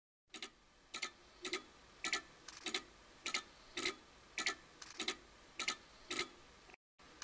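Steady, even ticking: about eleven quick double clicks, a little over half a second apart, that cut off abruptly near the end.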